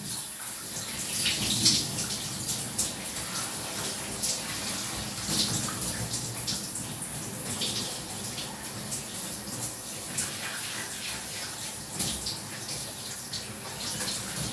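Shower running: a steady spray of water falling, with irregular splashes and drips breaking through.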